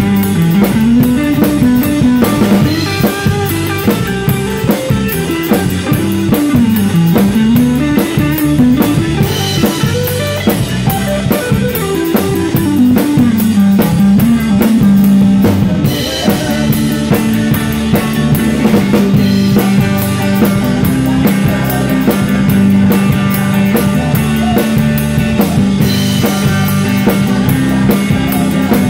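Live band playing a song, with the drum kit close and loud: sticks on snare and cymbals over the other instruments. A low line climbs and falls in the first half, then settles on a held low note from about halfway in.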